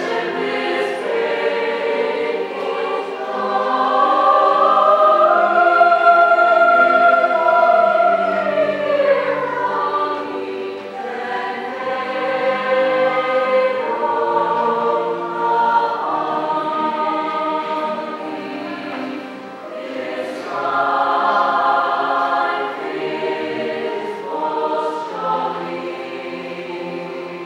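Chamber choir singing, many sustained voices together, swelling loudest a few seconds in and growing softer toward the end.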